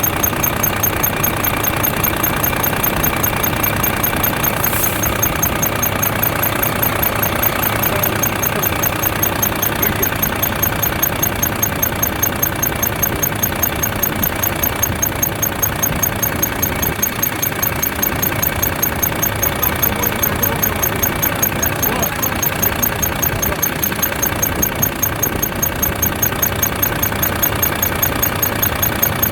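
Volvo FH13's inline-six diesel engine idling, with a rapid, regular high-pitched squeak from under the valve cover keeping time with the engine. The squeak points to a dry rocker-arm part that needs lubricating.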